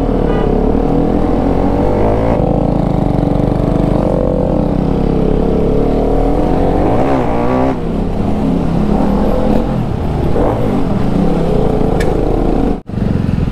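Motorcycle engine running under way, its note wavering up and down with the throttle, with a quick rev about seven seconds in. The sound drops out for an instant near the end.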